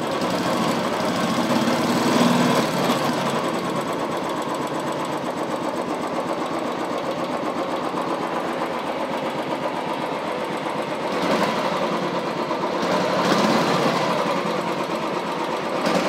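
Royal Enfield Classic Signals 350's air-cooled single-cylinder engine idling through its stock silencer, with a few short throttle blips, one a couple of seconds in and three more in the last third.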